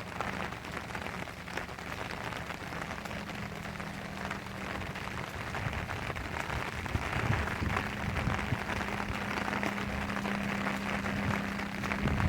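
Steady rain falling, with many close drop hits, over a steady low hum that grows stronger partway through.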